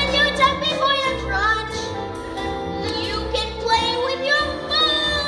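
A musical-theatre song number: singing over instrumental accompaniment, the voices holding and bending notes.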